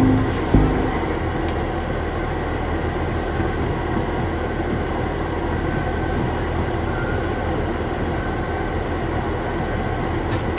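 Diesel truck engine running steadily with road noise as the truck drives slowly, heard from inside the cab, with a single knock about half a second in.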